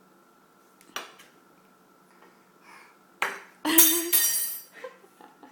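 Metal forks thrown down and clattering onto a hard surface: one sharp clink about a second in, then a loud burst of clattering with metallic ringing a little past the middle.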